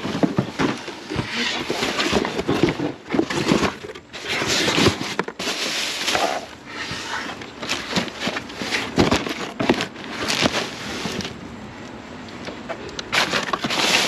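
Plastic wrap and bags crinkling and cardboard boxes scraping and shifting as they are rummaged through and pulled about by gloved hands in a dumpster, with irregular small knocks and rustles throughout.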